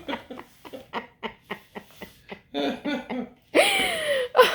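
People laughing: quick breathy pulses of laughter, then a loud rasping laugh with a falling pitch about three and a half seconds in.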